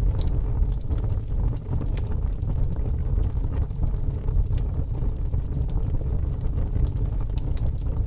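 Wood fire burning in a brick fireplace: irregular small crackles and pops from the logs over a steady low rushing noise.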